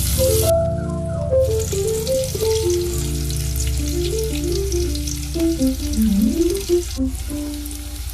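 Food sizzling in hot oil in a pan, a steady hiss that drops out for about a second near the start and then resumes, under background music with a melody over a steady low accompaniment.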